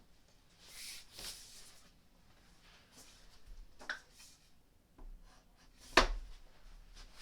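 Wooden furniture panels being handled and fitted together: two short rubbing, sliding sounds about a second in, a small click, and one sharp wooden knock about six seconds in as a shelf's dowels are pushed into a side panel.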